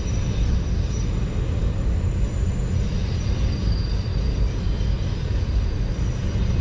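Train rolling past: a steady low rumble with a faint, thin high squeal above it.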